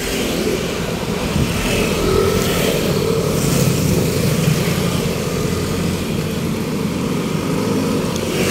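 A motor vehicle's engine running steadily close by, with road noise.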